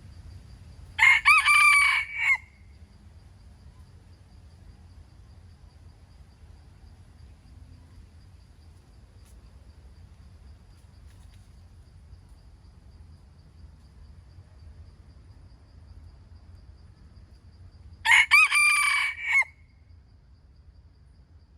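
A rooster crowing twice, once about a second in and again near the end, each crow lasting about a second and a half.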